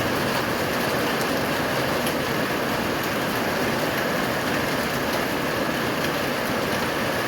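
Rain pouring steadily, a dense even hiss that holds at one level throughout.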